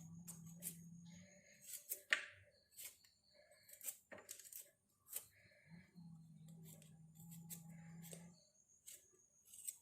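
Faint, irregular clicks and knocks of small kitchen items being handled, with a low hum that stops about a second in and comes back for a couple of seconds later.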